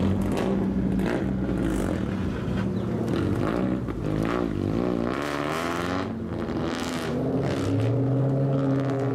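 Lowered cars driving out one after another at low speed, engines and exhausts blipping and revving up and down; a Lexus SC430 rolls past close about four seconds in, and an engine note climbs strongly near the end as a car accelerates away.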